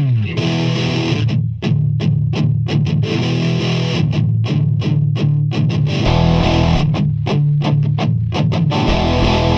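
Rock music led by a distorted electric guitar riff, opening on a falling slide and then playing in short, stop-start chugs. A heavy low bass comes in about six seconds in.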